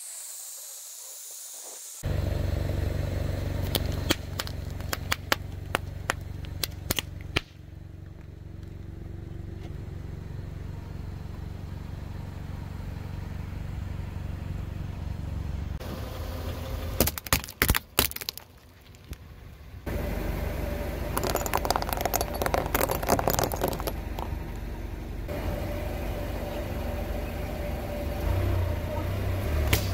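A car's engine running low as its tyre rolls slowly over objects, with sharp crackles, pops and scraping as the things under the wheel are crushed, in several short bursts. The first two seconds hold only a high hiss of foam escaping from crushed aerosol cans.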